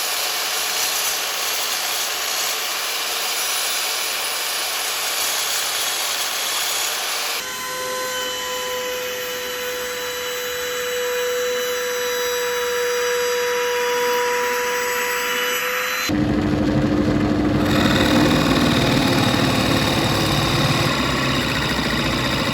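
Power tools working a wooden block, in three cut-together passages. First comes a steady hissing run, then a motor with a steady whine from about 7 seconds in. From about 16 seconds in there is a heavier, lower drilling sound as holes are bored into the wooden dice.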